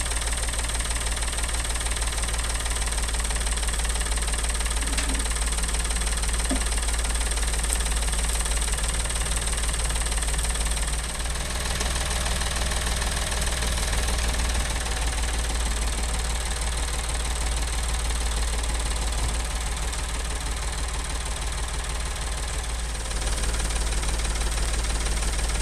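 Small David Brown farm tractor's engine running steadily at low revs with a knocking clatter as it works its front loader.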